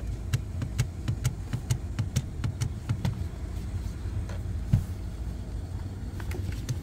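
Ratchet wrench clicking at an even pace, about two strokes a second, then more sparsely, as the seat's mounting bolts are run in, over a steady low rumble.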